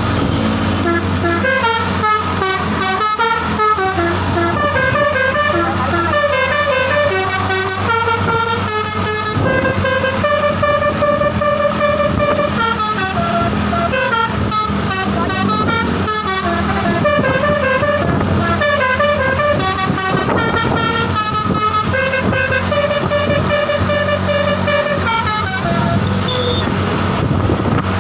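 Bus telolet basuri horn, a set of roof-mounted horn trumpets, playing a multi-note tune of tones stepping up and down, several at once. It plays for most of the stretch and stops about 25 seconds in, over a steady low engine hum.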